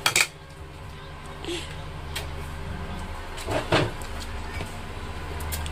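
A steady low hum, with a sharp click right at the start and a brief voice-like sound about three and a half seconds in.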